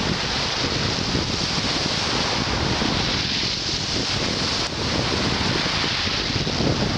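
Black Sea surf washing on the shore, with heavy wind rumbling on the microphone.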